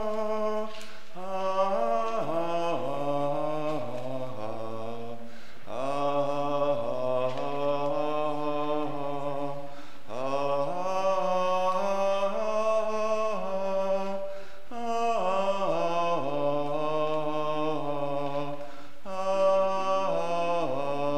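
A congregation singing a hymn a cappella with no organ, a man's voice leading, in phrases of about four to five seconds with short breaths between.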